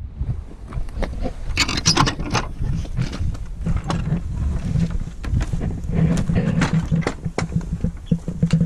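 Wind rumbling on the microphone, with irregular crunches, scrapes and knocks from a handheld camera carried on foot across gravel.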